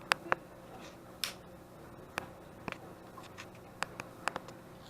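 Irregular sharp plastic clicks and taps, about ten of them, from hands working at a small SJ4000 action camera and its parts to get it open.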